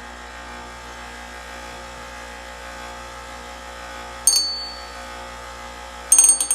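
6-inch Wen bench grinder running with a steady motor hum while a dull hatchet blade is touched to the grinding wheel: a brief high metallic screech about four seconds in, and a longer, louder one near the end.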